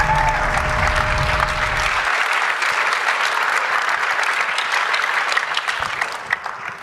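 Audience applauding. The low end of some music stops about two seconds in, and the applause dies down near the end.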